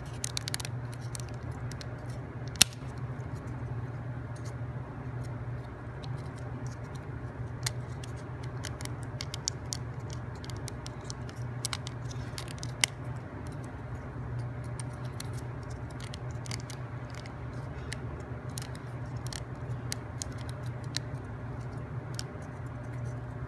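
Small plywood puzzle parts of a wooden combination-lock kit clicking and tapping as they are handled and pushed onto the model one by one, with two sharper knocks, over a steady low hum.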